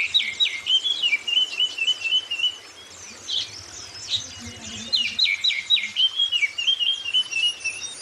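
Oriental magpie-robin (kacer) singing two loud phrases, each a run of quick downward-sweeping whistles running into a rapid warbling trill, the second starting about five seconds in. Fainter high-pitched white-eye (Zosterops) twittering continues behind it.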